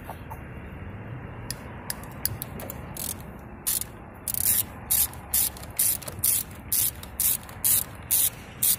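Socket ratchet wrench clicking in short rapid bursts, about two strokes a second, as it tightens the positive terminal clamp nut on a car battery. A few scattered clicks come first; the steady ratcheting starts a little before halfway in.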